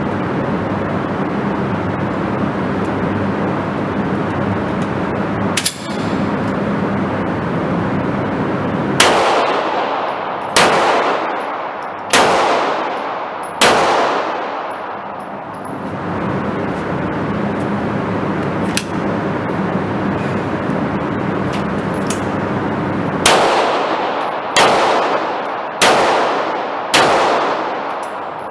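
Pistol shots fired in two strings of four, about a second and a half apart, each shot ringing out and fading. A steady hum runs underneath.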